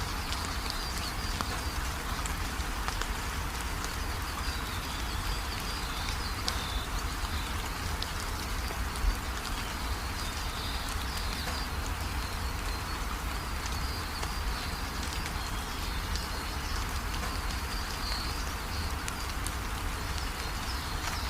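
Steady rain falling, an even hiss with scattered drop ticks, with a faint high wavering animal call running behind it. One sharp tap stands out about nine seconds in.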